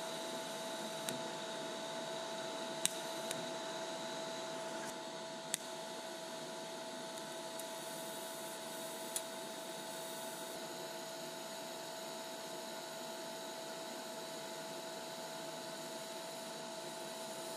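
Lincoln Electric Aspect 230 TIG welder running a low-amperage DC arc on the tips of two razor blades: a steady hum and hiss with the welder's cooling fan running, and a few sharp clicks in the first ten seconds.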